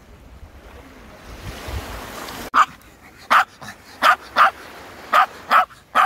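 Small Maltese dog barking: six short, sharp barks starting about two and a half seconds in, the later ones in quick pairs. Small waves wash on the shore in the first half.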